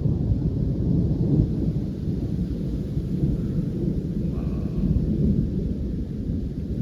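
Thunder rumbling low and continuously, rising and falling in strength, from a nearby electrical storm.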